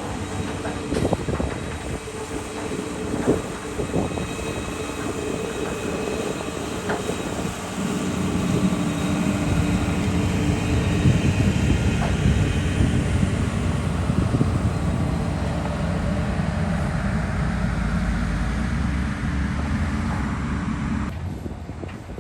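Heavy diesel earthmoving machinery working: engines running steadily with a few metallic clanks in the first few seconds, then a louder low rumble from about eight seconds in that cuts off near the end.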